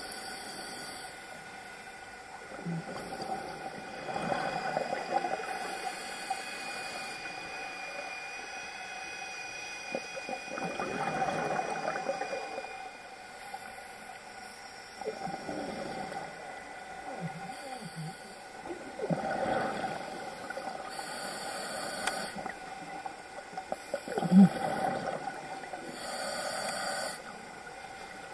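Scuba diver breathing through a regulator underwater: a hiss on each inhale and a rush of exhaust bubbles on each exhale, about five breaths, one every four or five seconds.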